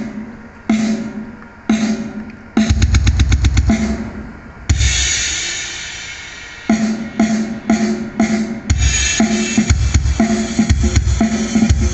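Drum-heavy music played loud through a PA rig of full-range speaker cabinets on stands over subwoofer cabinets, with deep bass. A slow drum beat gives way to a fast drum roll and a long cymbal crash, then a quicker beat.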